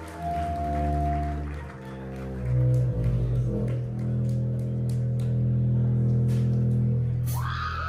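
Live rock band music: electric guitar and bass ringing out sustained chords that change a couple of times, with a few light ticks over the held notes.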